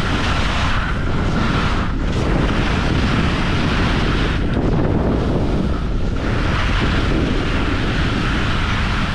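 Heavy wind noise on the microphone of a camera carried down a ski run, with the hiss of skis sliding over snow. The hiss thins briefly a few times as the skier changes turns.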